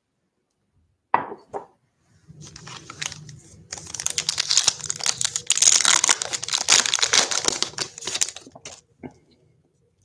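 Foil wrapper of a 2020 Bowman baseball card pack being torn open by hand. A sharp crackle comes about a second in, then a long stretch of loud crinkling and tearing that dies away near the end.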